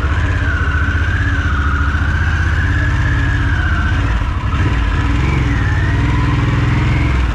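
Harley-Davidson Sportster S's V-twin engine running as the bike pulls off at low speed, its note rising a little after about four seconds.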